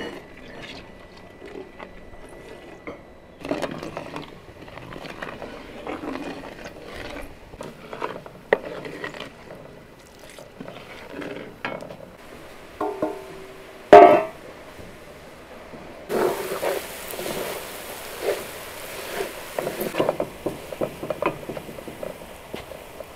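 Wooden spoon stirring and scraping halva (flour frying in oil) around a large aluminium kazan, with one loud knock about two-thirds of the way through. After that a steady sizzling hiss joins the scraping.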